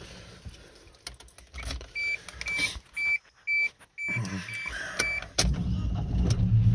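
Dashboard warning chime in a 1991 Suzuki Sidekick, beeping about twice a second for a few seconds, with a few clicks. The Sidekick's four-cylinder engine then turns over and starts running in the last second or so.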